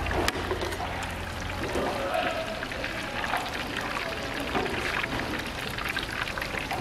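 Battered tempura strips deep-frying in a wok of hot oil, the oil sizzling and crackling steadily. A single sharp click sounds just after the start.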